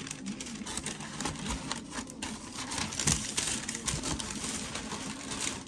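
Paper packing crinkling and rustling as it is handled and pulled about in close-up, a dense run of crackles with a sharper crunch about three seconds in.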